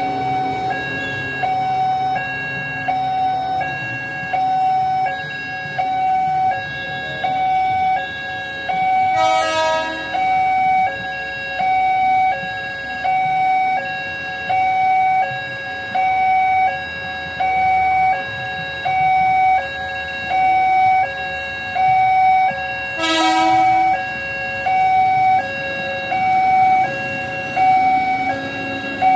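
Railway level-crossing warning alarm sounding an even two-tone alternating signal, about one cycle every second and a half, over road traffic: the warning that a train is approaching. Two short horn blasts cut through, about nine and twenty-three seconds in.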